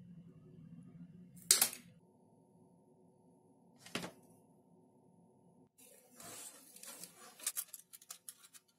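Diagonal side cutters snipping through a wooden popsicle stick with one sharp crack. A few seconds later a stick is knocked down once on a wooden tabletop, then near the end popsicle sticks clatter and click as they are laid out and pushed together.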